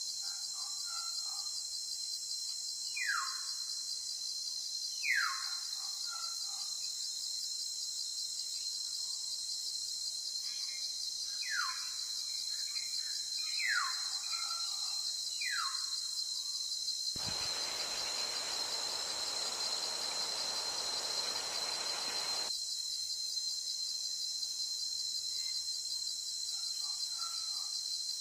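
Steady, high insect chorus with a fast, even pulse, with short falling whistled bird calls every few seconds. About seventeen seconds in, a rushing noise comes in and lasts about five seconds.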